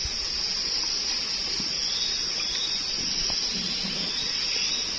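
Steady high-pitched drone of insects, unbroken, with a faint tick about three seconds in.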